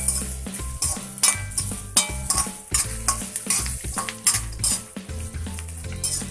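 A slotted steel spatula scrapes and clinks against a metal kadai, roughly two strokes a second, as peanuts, cashews, dal, dried red chillies and curry leaves are stir-fried in sesame oil. A steady sizzle of frying runs under the strokes.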